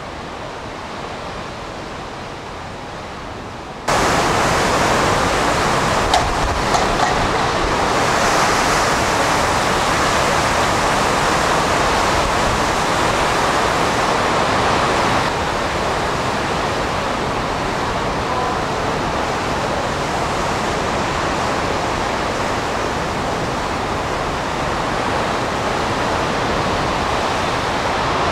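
Hurricane-force wind and driving rain from Hurricane Katrina blowing hard across the microphone as a steady rushing noise, mixed with storm-surge waves breaking. The noise jumps suddenly louder about four seconds in.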